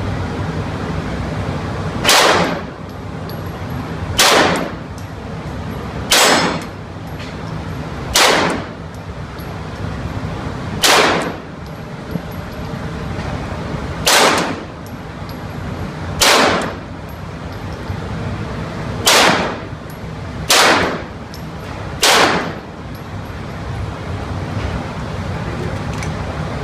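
Ten single gunshots from a firearm being fired at a shooting range, each a sharp crack with a short echoing tail, spaced about two to three seconds apart, over a steady background noise.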